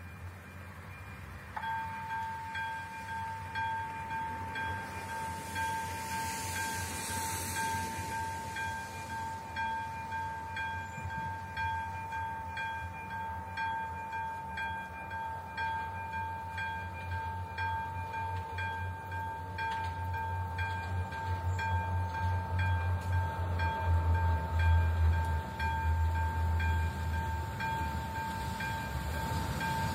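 Level-crossing warning signal's electronic bell switching on a couple of seconds in and ringing as a steady high tone. From about twenty seconds in, the low rumble of an approaching train grows beneath it.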